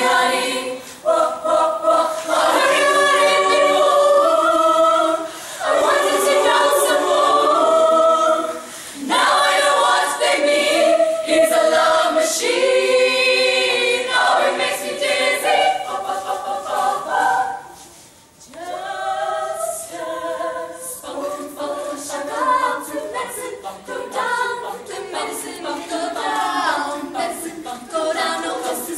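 A large group of young women singing together a cappella in chorus, with a brief break in the singing about two-thirds of the way through.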